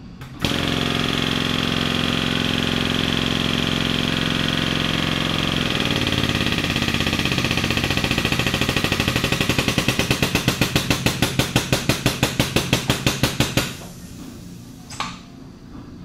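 Parker MiniKrimp portable hose crimper driven by a cordless power tool, running under load as it closes the die on a thermoplastic hose fitting. The motor runs steadily, shifts in pitch, then breaks into a rapid hammering at about five beats a second as the crimp bottoms out. It stops, and a short click follows.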